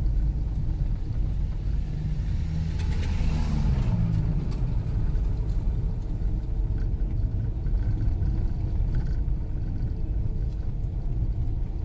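Fiat Strada pickup rolling slowly down a cobblestone street, heard from inside the cab: a steady low tyre and engine rumble, with a brief louder passage about three seconds in. No knock comes from the front end, the sign that the replaced steering box has cured the clunk.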